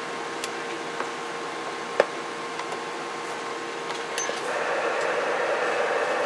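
Magnum S-9 10-meter radio being powered up: a steady electronic hiss with a faint steady tone, a sharp click about two seconds in, and the hiss growing fuller about four and a half seconds in.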